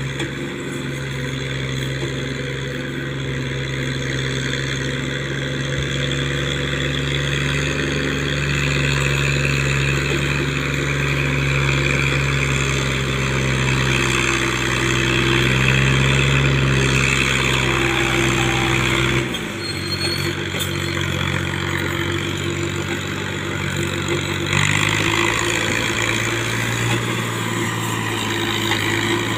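Alghazi 65 hp tractor's diesel engine running steadily as it hauls a trolley loaded high with sugarcane, growing louder as it approaches. About two-thirds of the way in the engine note drops and changes, then shifts again a few seconds later.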